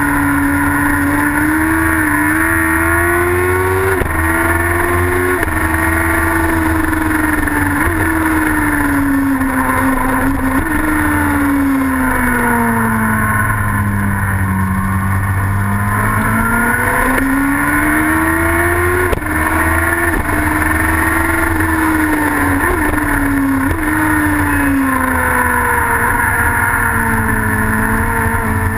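Racing sidecar's motorcycle engine running hard at speed, its note climbing steadily and dropping sharply at each gear change, several times over. Near the middle it falls away slowly and then climbs back up as the outfit slows and drives out again.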